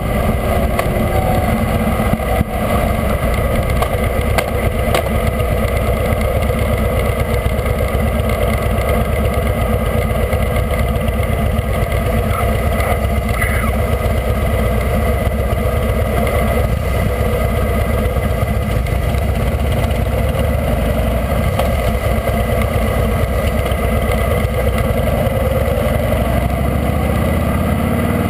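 Harley-Davidson V-twin motorcycle engine running as the bike is ridden along a road, with steady wind noise over the camera's microphone.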